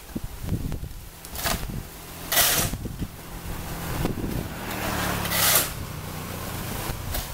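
Steel shovel scraping and scooping through concrete mix on a hard surface, in several gritty strokes a second or more apart, over a low steady hum.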